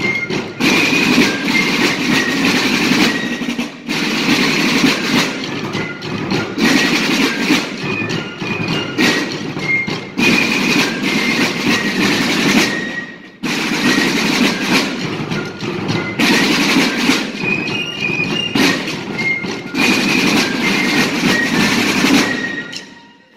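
Fife and drum corps playing: a row of rope-tension field snare drums rolling and rattling with a bass drum, and fifes carrying a melody of short high notes above. The music breaks off briefly about four seconds in and again past the middle, and stops just before the end.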